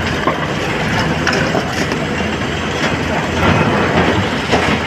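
SANY SY225 crawler excavator's diesel engine running under load while broken stone from its bucket clatters into the steel bed of a dump truck, with scattered knocks of rock on rock and on metal.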